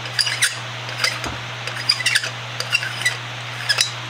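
Brass end cap being unscrewed by hand from a brass tube: a run of short, irregular squeaks and clicks as the metal threads turn.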